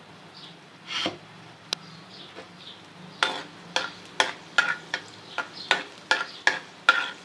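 Chopped garlic frying in ghee in a frying pan with a light sizzle, and a single knock about a second in. From about three seconds in, a spoon scrapes the pan about twice a second as the garlic is stirred.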